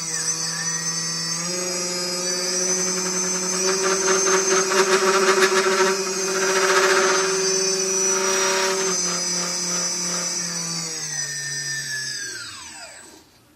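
A quadcopter's brushless motors running with no propellers fitted in a bench run-up test: a steady multi-tone electric whine that steps up in pitch about a second and a half in, throbs in the middle, then steps down and winds to a stop near the end.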